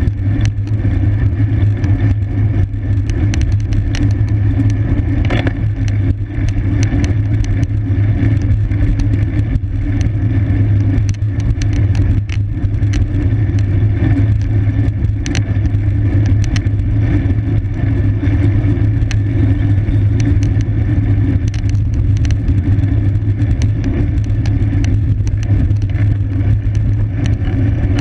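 Road bicycle being raced at speed: a steady low rumble of wind and tyres on the road, with scattered short clicks.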